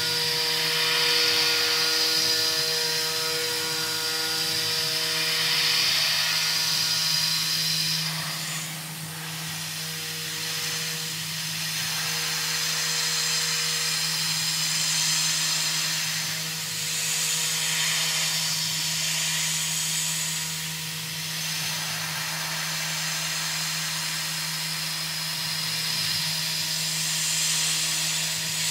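Tormach 440 CNC mill spindle running at about 10,000 rpm while a small end mill cuts an aluminium block: a steady hum with fainter tones that come and go, over a hiss that rises and falls.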